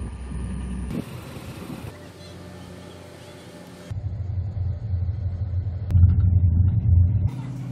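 Low engine rumble that changes abruptly several times as short clips cut. It is quieter in the middle, then from about four seconds in there is a louder, steady low hum of the kind a ship's engines give in a cabin and on deck.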